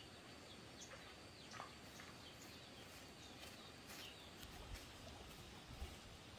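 Near quiet, with faint, scattered short high chirps from small birds falling in pitch, and a few soft low thumps in the second half.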